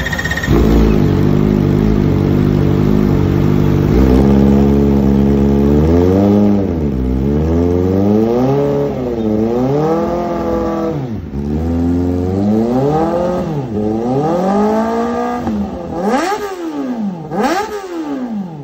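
Kawasaki ZX-4RR's inline-four engine running through an aftermarket Villain exhaust, first held at a steady fast idle, then revved up and down over and over, with two quick sharp throttle blips near the end.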